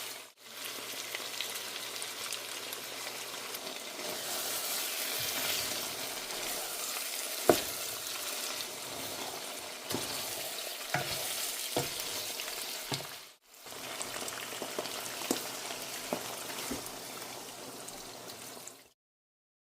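Food sizzling in oil in a cooking pot while being stirred, with a spoon clicking against the pot now and then. The sizzle breaks off briefly twice, and the sound stops just before the end.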